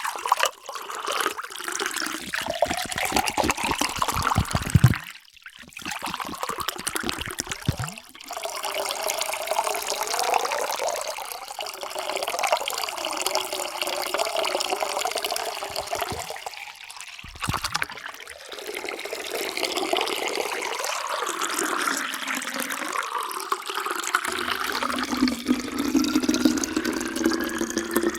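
Water pouring into a container, as several separate pours with sudden cuts between them; the pitch rises slowly as the vessel fills.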